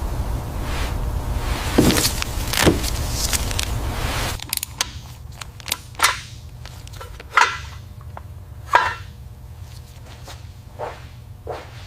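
Irregular sharp knocks and clicks, like tools and parts being handled. A steady low hum underneath cuts off suddenly about four seconds in, and a few louder knocks follow.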